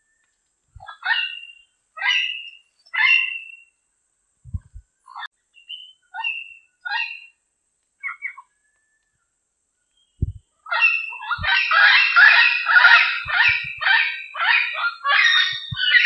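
Diademed amazon parrot calling: three harsh calls a second apart, then a string of shorter calls, and from about ten seconds in a dense, rapid run of loud squawks.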